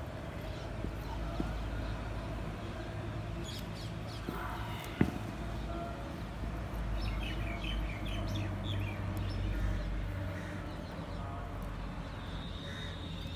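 Birds chirping over a steady low outdoor hum, with a single sharp click about five seconds in.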